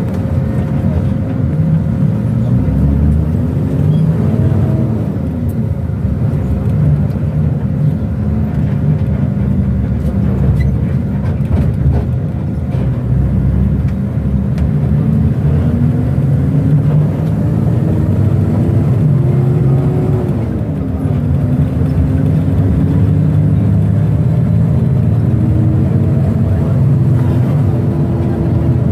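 Bus engine and road noise heard from inside the cabin: a steady low rumble, with the engine's pitch rising slowly as the bus accelerates and then dropping, several times.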